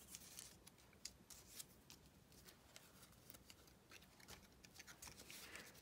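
Faint, scattered rustles and light ticks of small paper and cardstock embellishments being picked up and handled by fingers on a tabletop, close to near silence.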